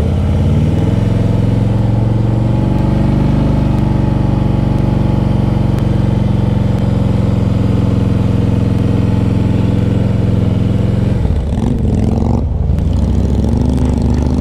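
Motorcycle engine pulling at steady revs. About eleven seconds in the revs drop for a gear change and then climb again as it accelerates.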